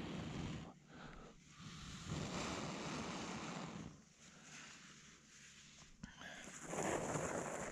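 Long breaths blown onto a glowing char cloth ember to feed it, a rushing of air that comes in about three puffs with quieter gaps between.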